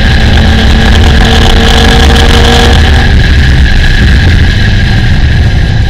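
Porsche engine at high revs in fifth gear, accelerating hard down a straight from about 120 to 140 mph, with wind and road noise, heard from inside the car.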